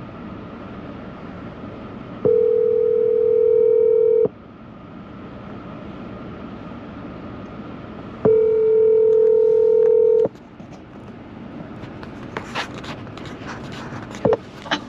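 Telephone ringback tone over the pickup's speakers as an outgoing call rings unanswered: two steady rings, each about two seconds long and about six seconds apart, the North American ring cadence. Under them is a steady cabin hum, and near the end come a few short clicks and knocks.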